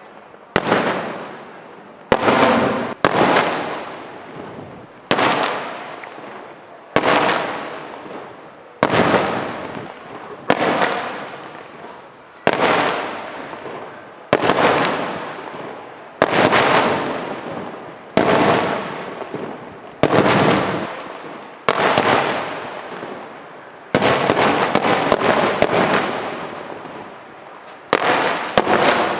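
Aerial firework shells bursting one after another, a sharp bang about every one to two seconds, each trailing off over a second or so. For a few seconds near the end the bursts run together.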